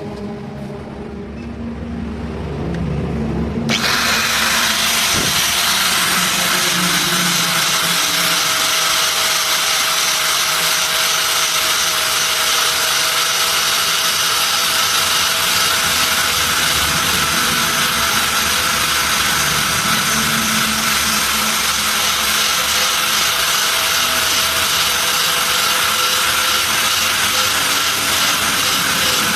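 A power tool runs steadily, loud and hissing, with a faint steady whine inside it. It cuts in suddenly about four seconds in, after a low rumble.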